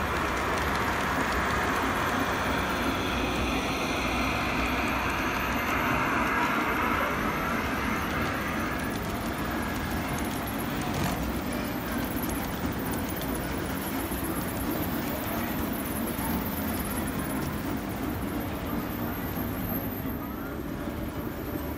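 Model freight train rolling past on the track, a steady rumble and rattle of wheels on rails. It is brightest and loudest over the first several seconds as the locomotive and hopper cars pass close, then settles to a steadier, duller running noise.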